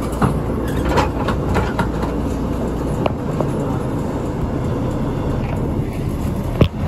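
Inside a Shimabara Railway route bus: the engine runs with a steady low rumble, broken by a few clicks and knocks, the sharpest one near the end.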